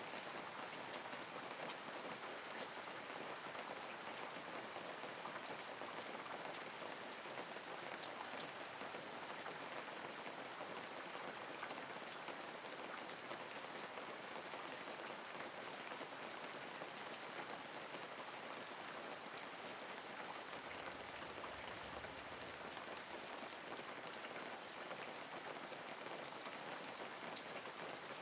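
Steady light rain: an even hiss of rainfall with individual drops ticking through it.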